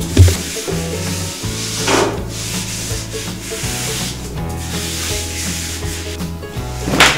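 A cloth wiping and rubbing over floor tiles around a toilet base, with a louder swish about two seconds in and another near the end, over background music. There is a low thump just after the start.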